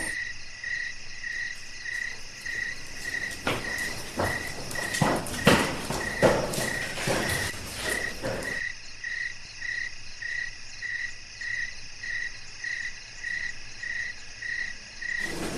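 Crickets chirping at night: one chirps steadily about every half second over a constant high insect trill. In the middle comes a run of irregular scuffs and knocks.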